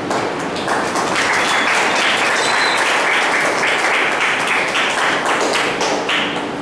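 Audience applauding: many hands clapping at once, swelling about a second in and dying away near the end.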